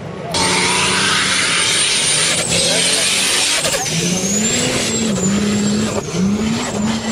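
Nissan Patrol and Toyota Land Cruiser 4x4 engines driven hard on sand, revving up and down, with a high turbo whistle gliding up and down over a heavy hiss of spraying sand. The sound jumps louder about a third of a second in.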